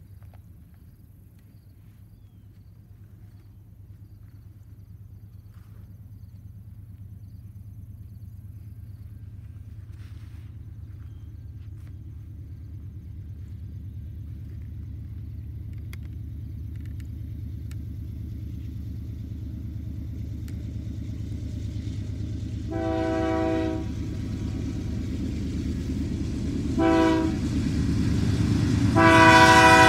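Approaching GE C44-9W diesel locomotives rumbling, growing steadily louder, with the lead unit's air horn sounding for a level crossing: a blast about a second long, a short blast, then a long blast held at the end.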